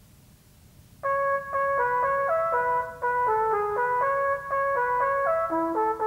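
After about a second of quiet, a trumpet-like brass melody starts: a lively tune of short, quickly changing notes, the instrumental lead-in to a nursery-rhyme song.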